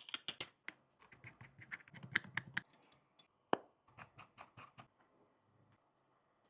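Quick, irregular light clicks and taps of small hand tools and parts handled against a phone, thick for the first three seconds, then thinning out and stopping about five seconds in.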